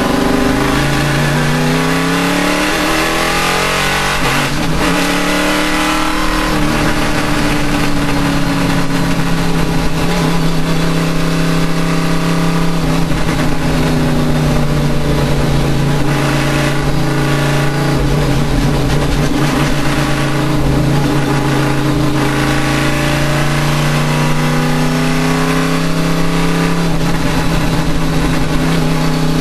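Racing engine running hard, its pitch climbing and dropping through several quick shifts in the first seven seconds, then holding a steadier note that slowly falls and rises again. This is the engine that has a misfire.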